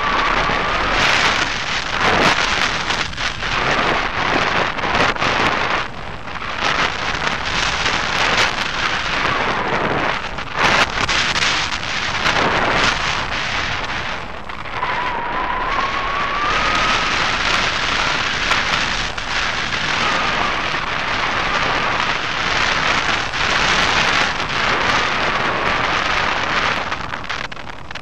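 Loud wind rushing over the microphone of a camera mounted on a hang glider wing in flight, gusting up and down. A faint wavering whistle drifts in and out.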